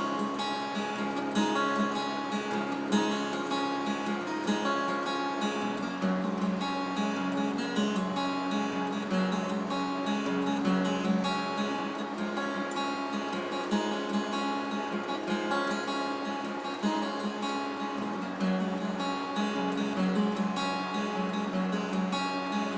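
Acoustic guitar played as a song's instrumental introduction, picked and strummed chords.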